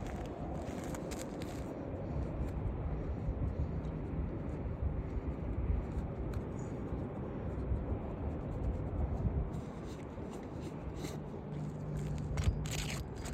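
Faint scraping and rustling of an asphalt roof shingle being worked loose, over a low steady rumble, with a few sharper clicks near the end.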